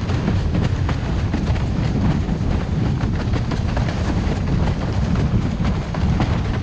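Wind buffeting the microphone over rushing water, with frequent irregular sharp slaps as a 115-litre Fanatic Falcon slalom windsurf board planes across chop.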